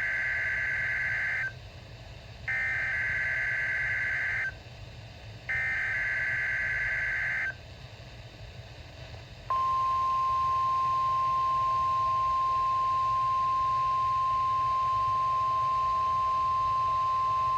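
NOAA Weather Radio Emergency Alert System test signal: the end of one burst of SAME header data tones, a harsh digital warble, then two more bursts about two seconds long with a second's gap between them. About halfway through comes the steady 1050 Hz warning alarm tone, one unbroken pure tone that holds.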